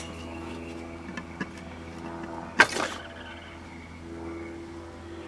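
A 78 rpm record playing through an old radio-phonograph's speaker: held musical notes over a steady low hum, with a few light clicks and one short, louder burst about two and a half seconds in.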